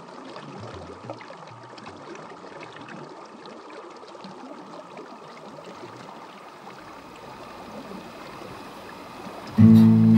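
River water flowing steadily. About nine and a half seconds in, an acoustic guitar starts being strummed, much louder than the water.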